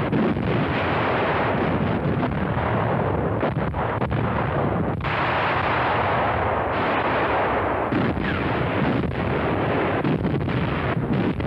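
Anti-aircraft guns firing in a barrage: a continuous din of many overlapping gun reports.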